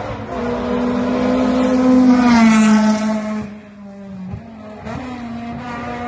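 Honda Civic race car with a K20 four-cylinder engine at high revs, approaching and passing close by; its engine note drops in pitch as it goes past about two and a half seconds in. It fades, then is heard again at a steady high pitch, quieter, near the end.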